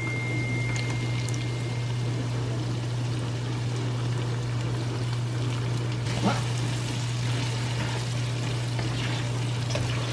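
Tomato sauce poured from a can into a hot skillet of ground beef, then stirred in with a spatula, with a few light scrapes against the pan. A steady low hum runs underneath.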